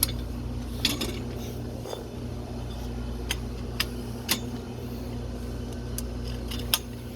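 Scattered sharp clicks and knocks of the prop's metal frame poles being handled and snapped together, about eight over several seconds, over a steady low hum.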